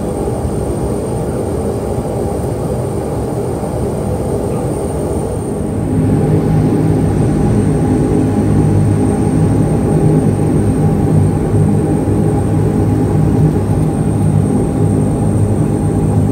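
Cabin sound of a de Havilland Canada Dash 8-200 twin turboprop: steady engine and propeller drone that steps up louder and heavier about six seconds in.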